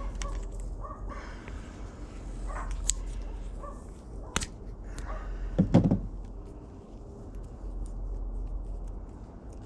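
A wire bundle and a roll of tape handled at close range as the wires are wrapped, giving small rustles and clicks over a steady low hum. About five and a half seconds in comes a brief, loud yelp, the loudest sound here.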